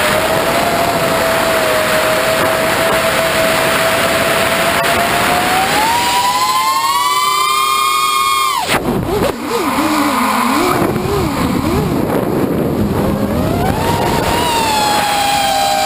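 FT210 quadcopter's brushless motors and propellers whining, heard through the onboard camera with wind rushing past: a steady pitch that rises about six seconds in, drops away suddenly a little past the middle, wavers low for several seconds, then climbs again near the end as the throttle changes.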